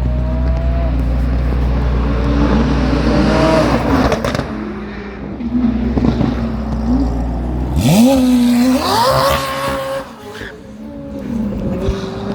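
Car engine revving and accelerating, its pitch sweeping up sharply about eight seconds in.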